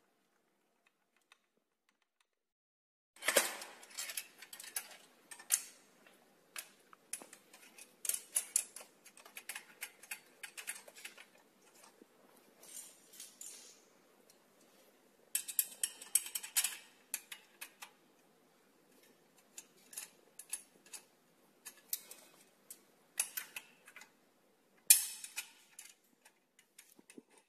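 Metal and plastic trike parts being handled and fitted together: irregular clicks, knocks and light rattling, starting about three seconds in and coming in clusters.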